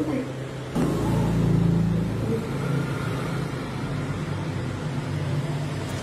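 A motor engine running steadily with a low hum, coming in suddenly about a second in.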